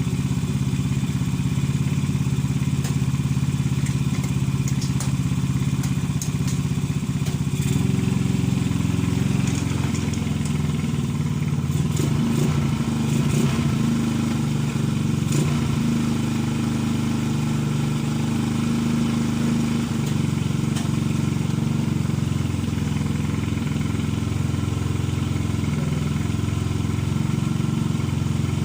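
Yamaha Mio Sporty scooter's single-cylinder engine running steadily at low speed, its pitch shifting slightly in the middle. It is running despite a sunken, leaking valve that makes it hard to start.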